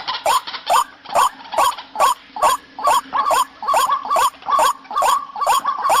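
White-breasted waterhen (ruak-ruak) calling in a fast, even series of short rising croaks, about two to three a second, played as a bird-lure call.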